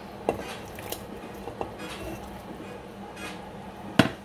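Papaya pieces being added to a stainless-steel pot of chicken broth: a few light clinks and knocks against the pot, then a sharp, louder knock near the end, over a steady low hum.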